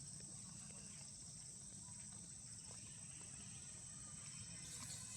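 Faint, steady, high-pitched insect chorus droning without a break.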